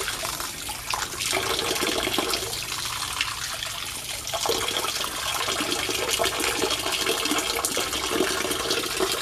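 Water running steadily into a shallow inflatable paddling pool, a constant rush and splash, with small splashes from hands moving in the water.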